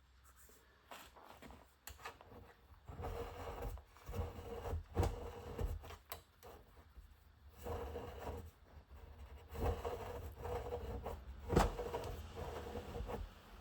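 Hands straightening the kinked wire lead of an induction heater coil, with uneven rubbing and flexing sounds broken by a few sharp knocks.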